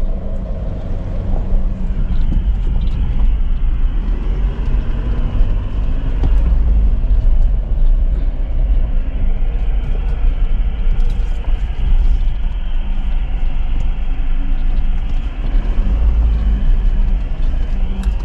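A four-wheel-drive vehicle heard from inside the cabin as it crawls down a steep dirt track: a steady low rumble of engine and tyres, with scattered small rattles and clicks.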